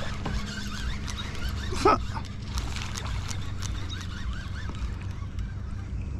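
A baitcasting reel is cranked steadily to work a Whopper Plopper topwater lure across the water, with scattered small clicks and splashes. About two seconds in there is a single short, louder call.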